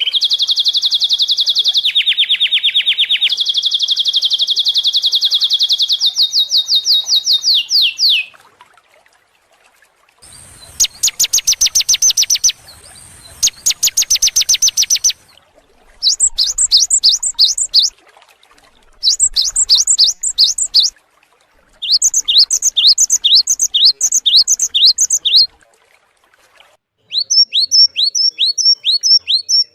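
Songbird song from a masteran training recording: a long, very fast trill that jumps up and down in pitch, then after a short pause two bursts of even faster trilling, followed by separate phrases of repeated down-slurred whistled notes, a few per second.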